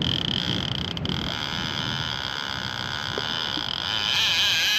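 Fishing reel's drag buzzing steadily as a hooked sturgeon runs and pulls line off the spool, growing louder about four seconds in.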